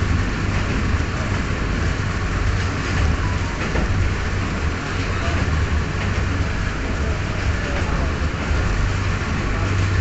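Passenger train running, heard from inside the carriage: a steady low rumble of the wheels and carriage with an even hiss of running noise over it.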